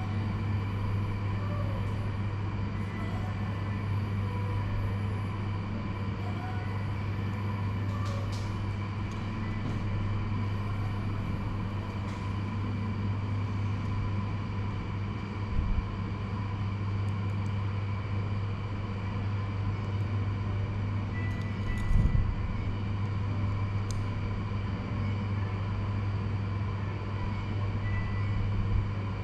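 Steady low mechanical hum, with two brief low thumps, one about halfway through and one about three quarters of the way in.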